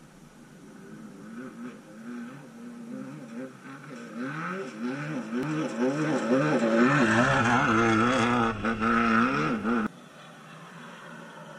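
Off-road race car's engine approaching on a dirt course, its revs rising and falling over and over as it crosses whoops, getting louder as it nears. The sound cuts off suddenly near the end.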